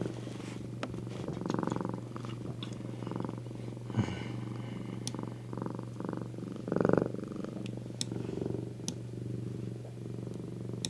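Domestic cat purring steadily on a lap, close up, the purr swelling and fading with each breath, with a few faint clicks and one louder swell about seven seconds in.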